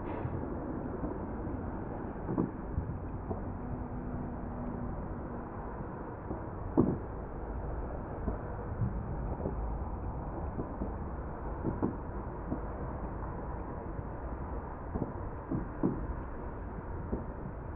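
Firework display: aerial shells bursting in scattered, irregular bangs over a steady low rumble, the loudest bang about seven seconds in.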